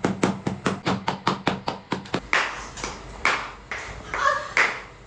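Hands striking a body in percussive massage: rapid even taps, about five a second, then after about two seconds slower, fuller slaps about twice a second.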